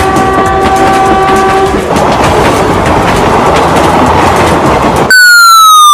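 Train sound effects: a train horn chord that ends about two seconds in, then the rumble and clatter of a train running on rails. Near the end, a loud single tone slides steadily down in pitch.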